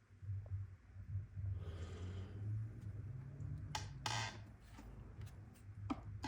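Torque wrench being worked on a fuel-injector hold-down bolt: a few sharp metallic clicks and light tool handling, over a low steady hum.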